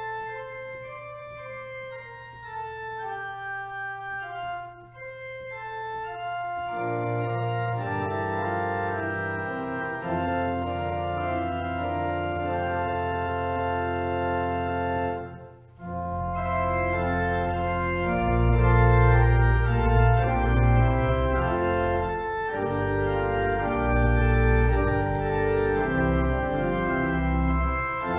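Church organ playing a hymn tune as the introduction to the melody. It plays the melody as single notes at first, then in full chords with deep bass notes from about a quarter of the way in, with a brief break near the middle before it carries on louder.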